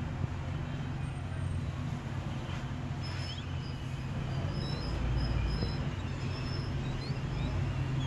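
Steady low rumble of road traffic that swells about five seconds in, with scattered faint, short, high chirps over it.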